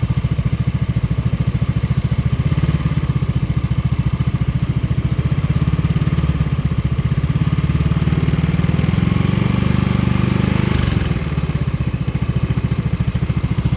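Yamaha Mio M3 scooter's 125 cc single-cylinder engine idling through a Ronin Hanzo aftermarket silencer set to its silent mode, a steady pulsing exhaust note. The revs rise slightly from about three seconds in and fall back to idle about eleven seconds in.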